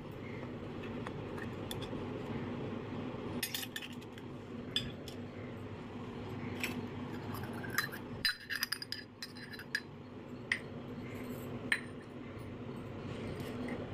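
Miniature stainless steel toy pots, cups and plates clinking as they are handled and set down on a concrete floor: scattered small metallic clicks, with a cluster about two-thirds of the way through, over a steady low hum.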